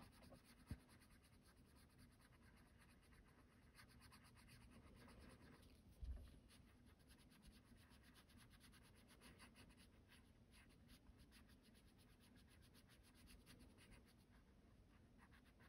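Faint scratching of a Caran d'Ache Luminance white coloured pencil on toned mixed-media paper, drawn lightly in small circular strokes. There is a sharp click under a second in and a soft low thump about six seconds in.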